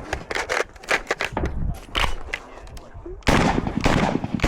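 Semi-automatic .308 rifle (PTR91) firing a string of shots at uneven intervals, with a louder, closer-spaced run of shots from about three seconds in.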